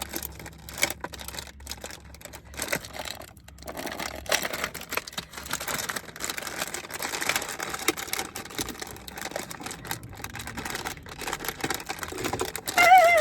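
Cookie packaging being worked at by hand, with irregular crinkling, scratching and clicking as someone struggles to open it. A brief wavering vocal sound comes near the end.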